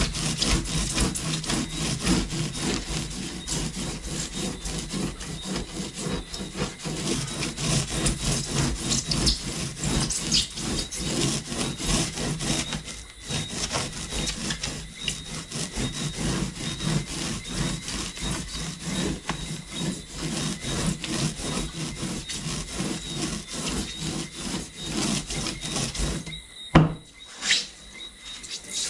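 Hand-sanding a block of polystyrene foam: a pad rubbing back and forth over the surface in quick, continuous scraping strokes, with a short pause about halfway. Near the end come a few louder, separate strokes.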